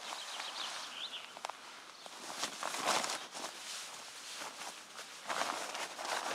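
Synthetic fabric rustling and crinkling as camping gear is stuffed and pressed into a stuff sack by hand. There are louder bursts of rustling about two and a half seconds in and again near the end.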